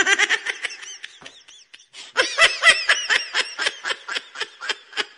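High-pitched, rapid giggling laughter, a run of quick 'ha-ha' pulses that thins out briefly about a second in and then picks up again.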